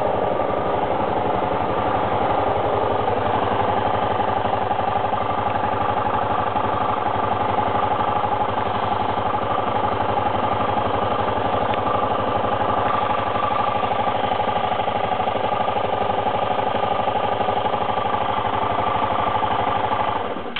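Suzuki GSR 125 scooter's single-cylinder engine idling steadily, which the owner reports as making an abnormal noise. It stops abruptly near the end.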